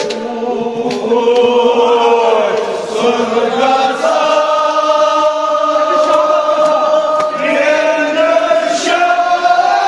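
A group of men's voices chanting a Kashmiri marsiya lament together, holding long drawn-out notes.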